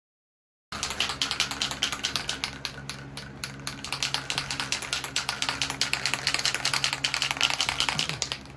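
Aerosol spray can being shaken, its mixing ball rattling in quick clacks several times a second, starting about a second in. A steady low fan hum runs underneath.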